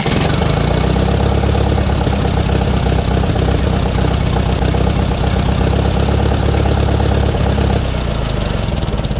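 Massey Ferguson 135's Continental four-cylinder gasoline engine running steadily just after its first start on new ignition points and condenser. It only keeps running with the choke pulled out, a sign of carburetor trouble. It drops a little in level about eight seconds in.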